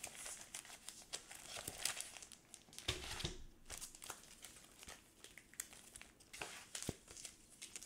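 Comic books and their packaging being handled and shuffled by hand: faint rustling and crinkling with small clicks, and a soft thump about three seconds in.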